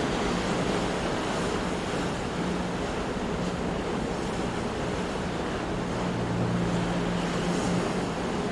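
Big ocean waves breaking on rocks, heard as a steady, unbroken wash of surf with no single crash standing out.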